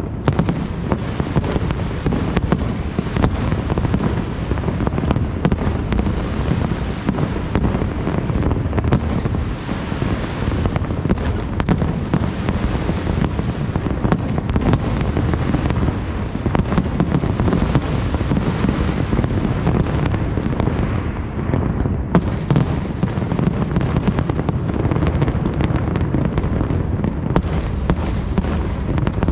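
Distant fireworks display: a continuous, dense run of booms and crackling bursts overlapping one another without a pause, the low rumble of the bangs strongest.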